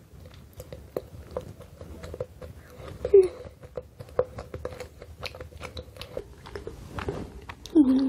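Close-miked chewing of a bite of moist carrot cake layered with cream cheese frosting: irregular small mouth clicks and smacks.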